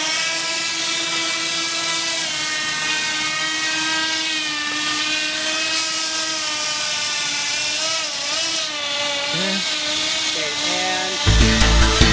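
Small electric motors and propellers of an RC blimp whining at a steady high pitch while under full thrust, wavering slightly and dipping briefly about nine seconds in. Loud electronic music comes in near the end.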